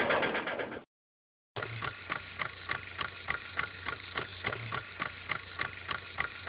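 Logo sound effect: a noisy sound fades out, then after a brief silence comes an even mechanical ticking of about three ticks a second over a low hum.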